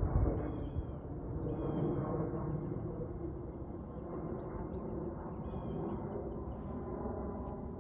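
Jet airliner engine rumble fading away after the aircraft passes, with small birds chirping over it.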